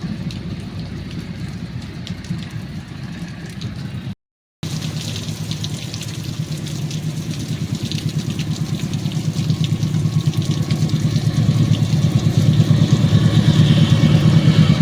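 Diesel locomotive engine running with a steady pulsing throb, growing louder as the train approaches. The sound cuts out briefly about four seconds in.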